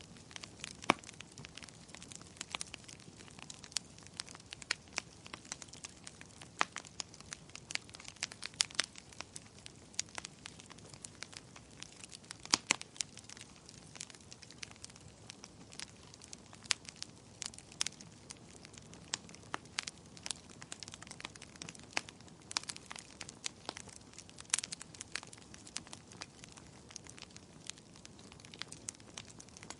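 Wood fire crackling in a fireplace: irregular sharp pops and snaps over a soft steady hiss, a few of them louder.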